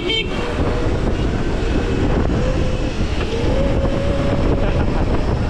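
Wind buffeting the microphone while riding an electric dirt bike at speed, with a faint wavering whine that rises slightly about three seconds in.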